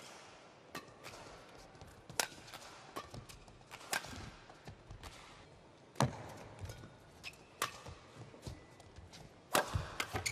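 Badminton rackets striking a shuttlecock: sharp, single cracks every one to two seconds in a rally, with players' footsteps on the court between hits.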